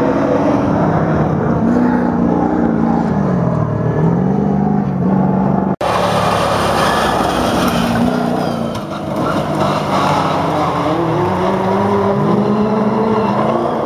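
Engines of vintage GAZ rally trucks racing flat out on gravel, the pitch climbing and dropping again and again through gear changes. The sound breaks off for an instant about six seconds in and resumes with another truck revving hard as it comes closer.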